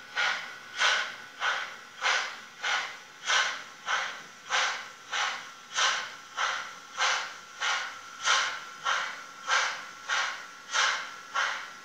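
Model steam tank locomotive numbered 099 651-2 chuffing steadily as it runs, its sound module giving an even, hissing exhaust beat of about one and a half to two chuffs a second.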